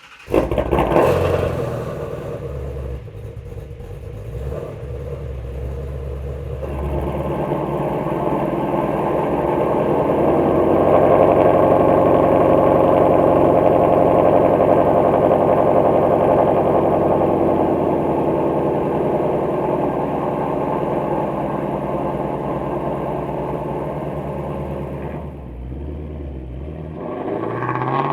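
Ford Shelby GT350's 5.2-litre flat-plane-crank V8 running through its stock exhaust with the catalytic converters removed. It flares loudly just after starting, about a second in, settles, then runs steadily louder through the middle before easing back near the end.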